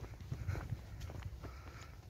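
Footsteps of someone walking through a park, with irregular short steps over a low wind rumble on the microphone.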